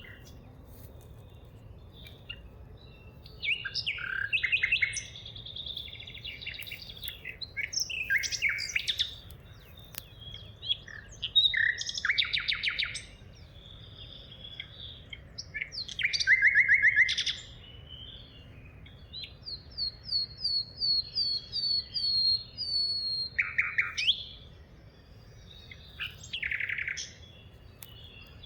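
Several songbirds singing in a forest: phrases of rapid trills and chirps every few seconds, including a falling series of about a dozen quick whistled notes near the middle, over a low steady background hum.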